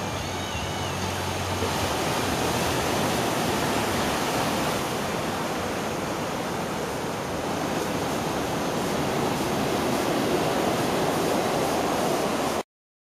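Steady rush of breaking surf, churning water with no speech or music. It cuts off abruptly near the end.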